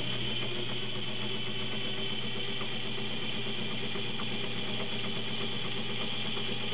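Vintage Kenmore model 35 sewing machine sewing a zigzag stitch through fabric, its motor running with a steady, even hum.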